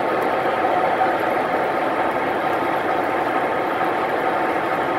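Steady diesel idle from the onboard sound systems of MTH Premier O-scale model diesel locomotives (a GE U30-C and EMD units) standing with their train.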